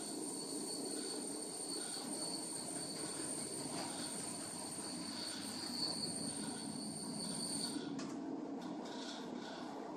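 Cowen honey extraction line machinery running steadily, with a high-pitched whine over the mechanical noise that cuts off suddenly about eight seconds in.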